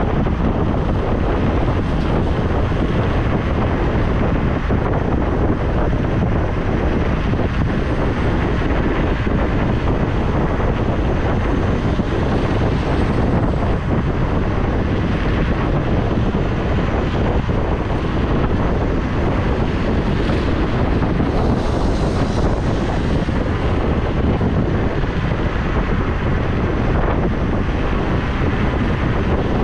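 Wind rushing over the microphone of a handlebar-mounted camera on an electric scooter riding at speed, a steady, loud noise heaviest in the low end.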